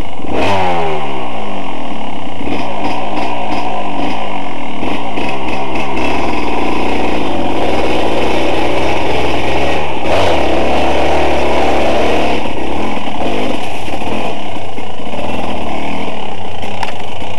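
Dirt bike engine, loud and close: the revs drop steeply about half a second in, then it runs on under load, swelling again around ten seconds in.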